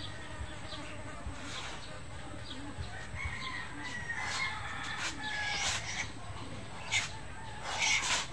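A swung practice weapon whooshes through the air several times, loudest in two swishes near the end. A rooster crows in the background for a couple of seconds around the middle.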